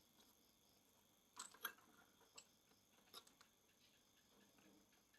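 Near silence with a few faint, sharp clicks and taps, about four in all between one and three seconds in, from hands working a plastic action-camera helmet mount.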